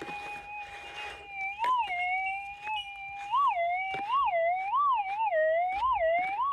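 Minelab GPX 6000 gold detector's audio: a steady threshold hum that breaks into repeated rising-and-falling warbles, about one every 0.7 seconds, as a freshly dug-out gold target is passed back and forth over the coil. The swells are the detector's target response, the sign of a metal target in the dirt.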